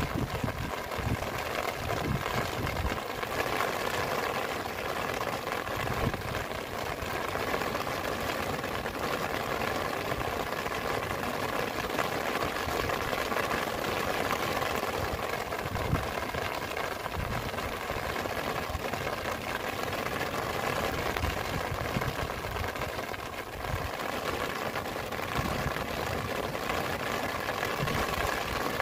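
Steady heavy rain with wind, gusts thumping irregularly on the microphone.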